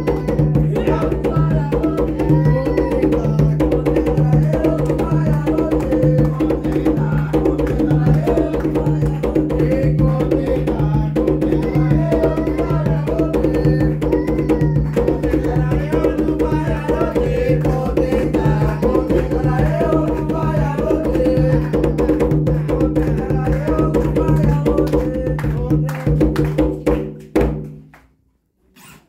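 Drums playing a steady Afro-Brazilian ritual rhythm under group singing of a chant for Pombagira. The drumming and singing stop abruptly shortly before the end.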